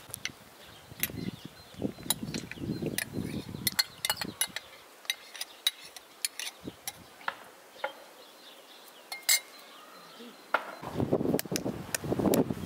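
Spoons clinking and scraping against glass mixing bowls as dough ingredients are stirred and yogurt is spooned into a bowl of flour: a scattered series of sharp clinks and taps. Near the end there is a denser patch of handling noise.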